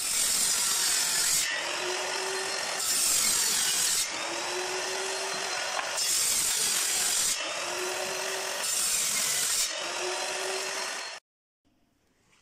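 Table saw's circular blade cutting red melamine-faced particleboard: a loud, steady, noisy whir that swells and dips about every one and a half seconds, cutting off abruptly about 11 seconds in.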